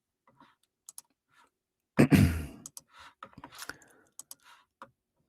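A sigh close to the microphone about two seconds in, among scattered small clicks and taps.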